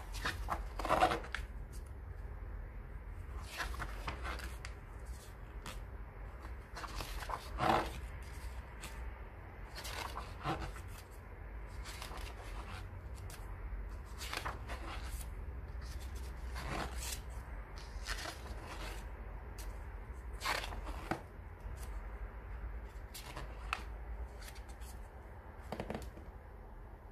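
Pages of a graphic novel being turned one after another, a short paper rustle every two to three seconds, with the louder turns about a second in and near eight seconds in.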